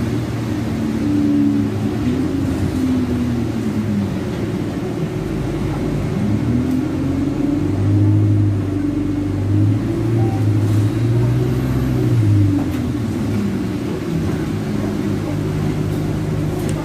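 Alexander Dennis Enviro200 bus's diesel engine heard from inside the passenger saloon, its note rising as the bus accelerates, holding, then dropping back to a steady lower drone as it eases off.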